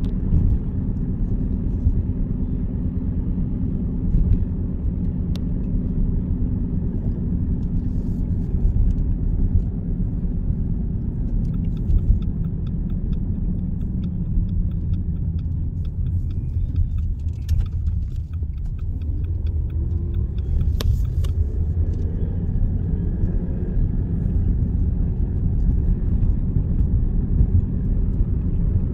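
Car driving, heard from inside: a steady low rumble of road and engine noise.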